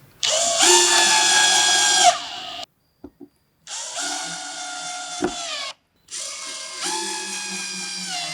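A power tool's electric motor run three times, each time spinning up to a steady whine and then winding down in pitch.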